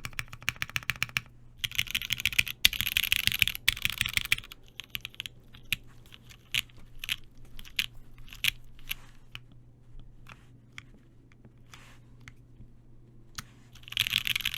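Custom mechanical keyboard with broken-in, lubed Cherry MX Black linear switches on an aluminum plate being typed on. Fast, dense runs of keystrokes open the stretch and return near the end, with slower single key presses between them that thin out before the last run.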